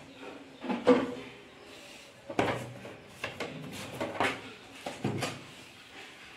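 Handling clatter as a small black plastic box is lifted, turned over and set back down inside a water purifier's plastic cabinet. A sharp knock comes about a second in, then a run of knocks and scrapes from about two and a half to five seconds.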